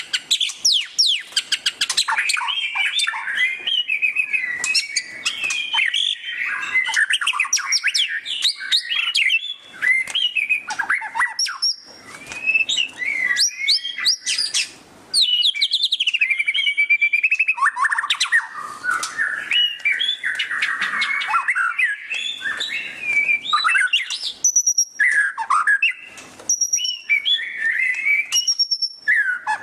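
White-rumped shama (murai batu) singing loudly in a fast, near-continuous run of chattering trills and sweeping whistles: the 'ngeriwik' song used as a tutor recording for captive shamas. The song pauses briefly twice, and later it includes repeated short high whistles.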